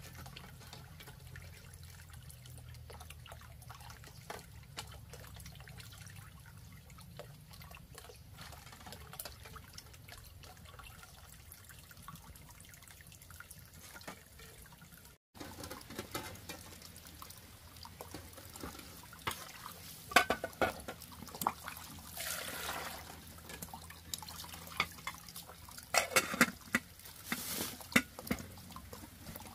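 Water trickling and dripping, with scattered clicks and knocks. The sound drops out for an instant about halfway through; after that, louder sharp knocks come, along with two short rushes of noise.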